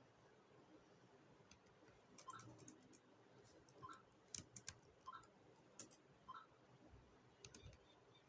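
Near silence with faint, irregular clicks and small ticks scattered through it.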